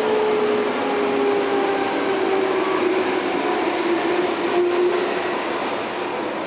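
Tokyo Metro 03 series VVVF inverter and traction motors heard from inside the car: a whine falling slowly in pitch over running rumble as the train slows. The whine fades about five seconds in and a lower one takes over near the end.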